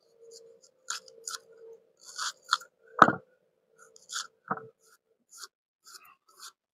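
Small knife cutting through a raw onion held in the hand, a series of irregular crisp crunches, the loudest about three seconds in.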